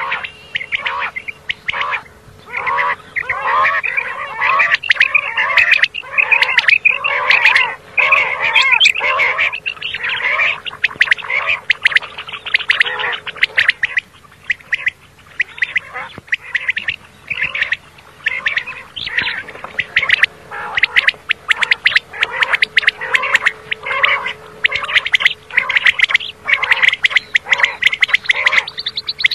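Common quail calling: a dense stream of short, rapid, overlapping calls, with a faint steady hum underneath.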